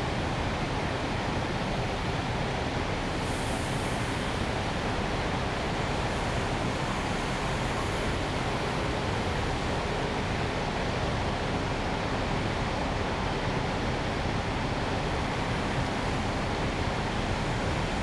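Steady city ambience in Wan Chai, a constant wash of distant traffic and machinery noise with no distinct events, and a brief high hiss about three seconds in.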